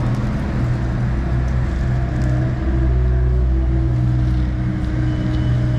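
Motorcycle engine idling steadily with a low, even hum.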